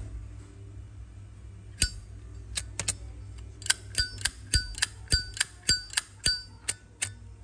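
Silver-plated Zippo lighter's hinged lid clicked open and snapped shut again and again, each stroke a sharp metallic clink that rings briefly at the same bright pitch. It starts about two seconds in and quickens to a steady run of clinks in the second half.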